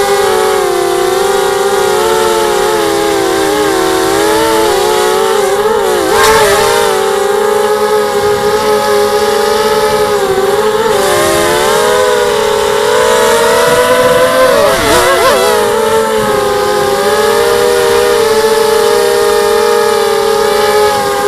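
Motors and propellers of a 250-size FPV quadcopter whining steadily in several close pitches, which dip and wobble together twice, about six and fifteen seconds in.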